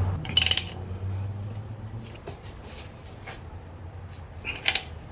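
Sharp metallic clinks, as of tools or wheel bolts being handled and set down. The loudest comes about half a second in, a few faint ones follow, and another loud one comes near the end.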